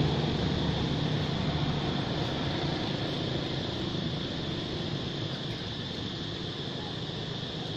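Steady outdoor background noise: a low engine-like hum that slowly fades away, with a steady high-pitched whine over it.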